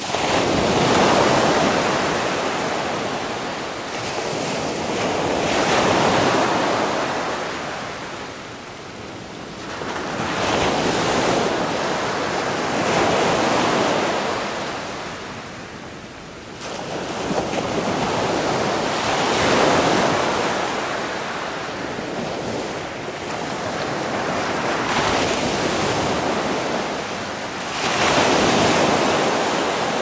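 A loud rushing noise that swells and fades every four to six seconds, with no distinct tones, and comes in suddenly at the start.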